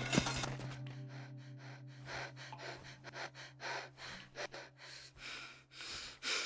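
A person's breathing in short, sharp gasps, one or two a second, the loudest one near the end. A low steady hum lies under it.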